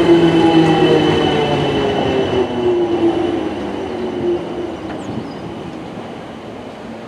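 Electric multiple unit passing along the platform, its motors whining in several tones that slowly fall in pitch as the train slows, under the rumble of its wheels on the rails. The whine and the rumble fade over the last few seconds.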